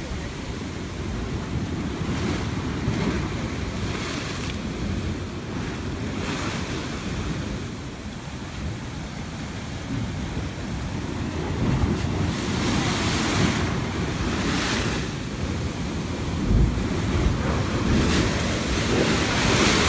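Ocean surf rushing into a sea hole in the shoreline rock and draining back out, with water splashing over the rocks and wind buffeting the microphone. The surges grow louder in the second half, and one wave bursts up and sprays over the hole near the end.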